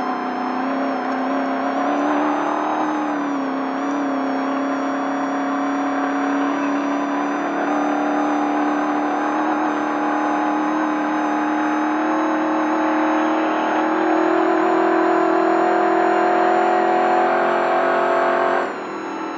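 Desert race truck's engine running hard at high revs, its note holding steady and slowly climbing in pitch, with a short dip and recovery about two to four seconds in. The engine note falls away suddenly near the end.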